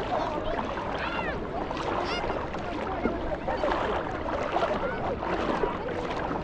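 Crowd of beachgoers talking at once, an overlapping babble of many voices over a steady wash of noise, with a few higher shouts about a second and two seconds in.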